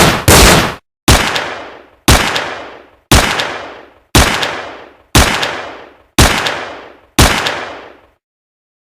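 Gunshot sound effects: the last shot of a quicker series, then seven single shots about a second apart, each with a reverberating tail that dies away, before cutting to silence.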